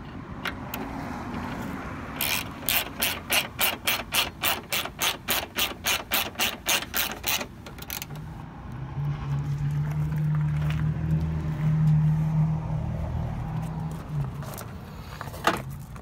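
Hand ratchet clicking quickly, about four clicks a second, as it tightens the screws of a truck door latch bracket. After a few seconds of clicking, a steady low hum follows for several seconds.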